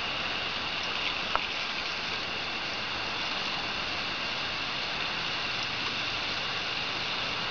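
Water running steadily from a garden hose, an even splashing hiss, with one sharp click about a second and a half in.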